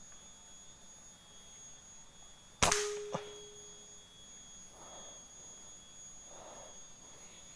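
A single air rifle shot: one sharp crack about two and a half seconds in, followed by a short steady tone that lingers for about a second and a fainter click. The rifle's air charge is running low, which the shooter blames for the shot leaving the squirrel alive.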